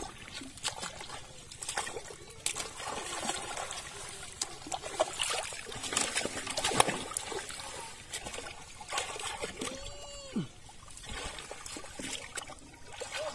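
Shallow pond water splashing and trickling as a wading man thrashes his arms through it and the floating water hyacinth, grabbing for fish, in a run of short irregular splashes.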